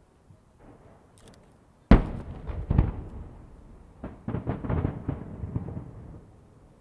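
Aerial firework shells bursting. A single sharp bang comes about two seconds in and trails off in a rumble, then a quick run of crackling pops follows from about four seconds in and fades out.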